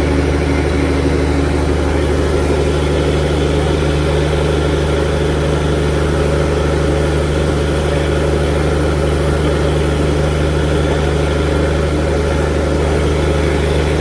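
Mechanized fishing boat's engine running steadily at an even, low pitch, without revving.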